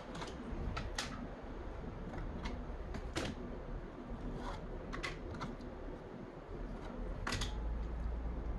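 Scattered light clicks and taps of acrylic pieces being fitted and handled by hand, about half a dozen spread over several seconds, over a faint low hum.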